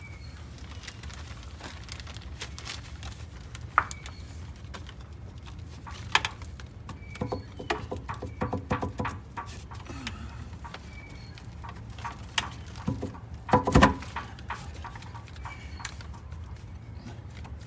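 Hands working on a Detroit Diesel 6-71's air intake ducting: scattered metallic clicks, knocks and rattles, busier about halfway through, with the loudest knocks about three-quarters of the way in.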